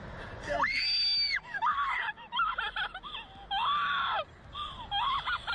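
A woman screaming in a series of loud, high-pitched shrieks, with long held screams about half a second in and again around three and a half seconds, and shorter wavering ones between and near the end.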